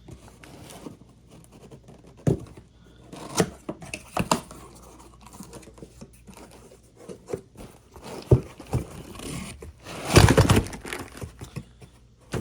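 A cardboard parts box being opened by hand: tape and packing torn and crumpled, with scattered knocks of the box and parts, and a louder noisy stretch about ten seconds in.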